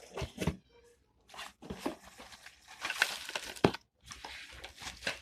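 Plastic packaging crinkling and rustling as vacuum-cleaner parts are unwrapped and handled, with irregular clicks and knocks of plastic parts; a sharp click stands out a little after halfway.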